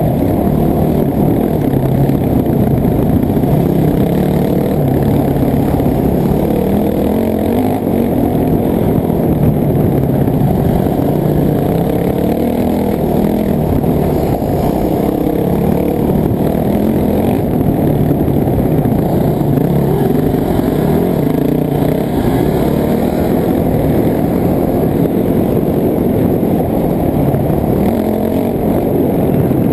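Off-road dirt bike engine running hard, its pitch rising and falling all the way through as the throttle is opened and closed.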